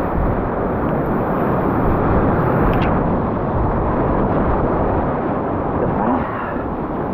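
Loud, steady rushing of whitewater rapids heard from a kayak running them, with one brief click about three seconds in.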